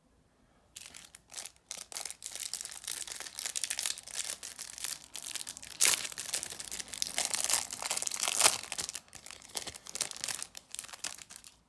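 Clear plastic wrapper of a trading-card pack being torn open and crinkled by hand: a dense, irregular crackling, with two louder sharp rips a little past halfway and about three-quarters through.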